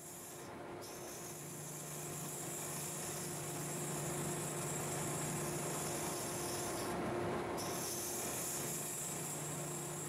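A gouge cutting into the end grain of a spinning Osage orange blank on a wood lathe, hollowing it out. The cutting is a steady scraping hiss over the lathe motor's even hum.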